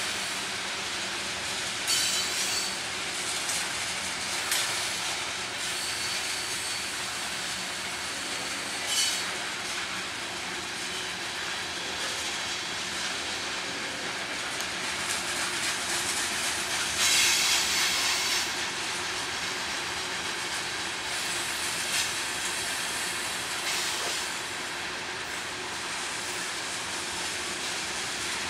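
Grain train covered hopper cars rolling past steadily, steel wheels running on the rails. Several short, high-pitched wheel squeals cut through, the longest and loudest about two-thirds of the way through.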